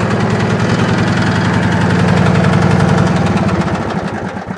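Twin-cylinder Briggs & Stratton engine on a Wheel Horse garden tractor running steadily on one cylinder, with the other spark plug disconnected: the repaired, formerly dead cylinder is carrying the engine alone. The sound starts to fade near the end as the engine dies down.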